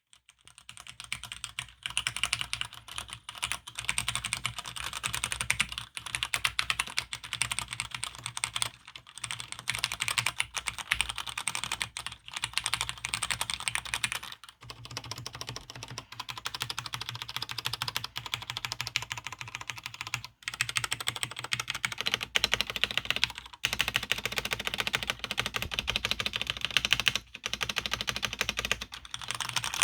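Fast continuous typing on a Cherry G80-3000 mechanical keyboard with linear red switches and Acorn fx2 keycaps: a dense run of keystroke clacks, broken by brief pauses every few seconds.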